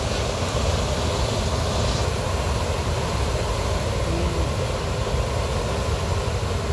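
Heavy diesel truck engines running with a steady low rumble.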